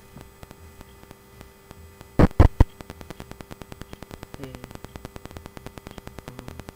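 Mobile phone's radio interference buzz picked up by the microphone as a call is placed: three loud bursts about two seconds in, then a fast, even clicking.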